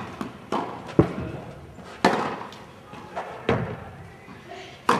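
Tennis rally: a string of sharp ball strikes, racket hits and bounces on the court, roughly one a second, each with a short echo.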